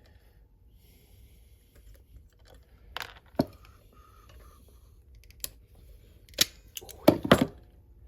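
About half a dozen scattered sharp metallic clicks and clinks of hand tools and small moped engine parts being handled and set down, with a quick loud pair near the end.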